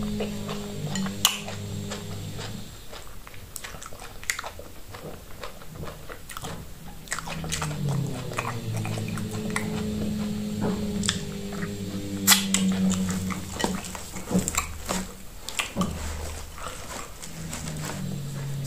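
Close-up eating sounds of fufu and stretchy okro and ogbono soup eaten by hand: wet chewing, lip-smacking and slurping soup off the fingers, with many sharp smacks. A low hum runs underneath at times.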